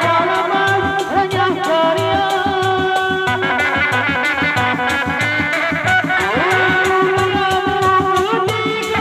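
Sundanese dogdog drums, hand-struck hide heads on wooden bodies, played together in a steady, fast, interlocking beat. A melody with sliding, wavering notes plays over the drums.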